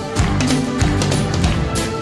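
1980s pop music with a steady drum beat.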